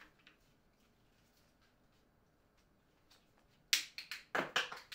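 A selfie stick holding a tablet being handled: quiet at first, then, about three and a half seconds in, a fast run of about eight sharp clicks and knocks within a second or so, some with a dull thud.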